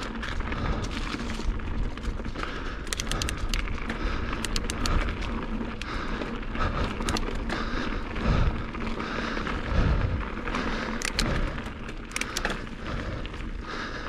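Mountain bike ridden up a trail climb, heard from a helmet chin-mounted camera: a steady rumble of tyres and riding noise with scattered sharp clicks and rattles from the bike, and a few dull thumps from bumps or buffeting on the microphone.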